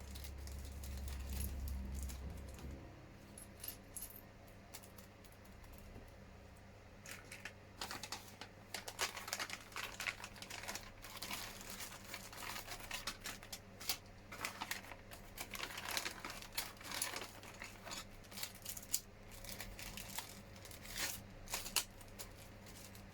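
Small hard plastic model parts clicking and a plastic parts bag crinkling as they are handled, in short irregular bursts, with a low rumble in the first few seconds.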